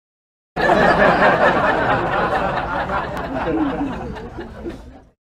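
People laughing, an added laughter sound effect that cuts in abruptly about half a second in and fades away before stopping just before the end.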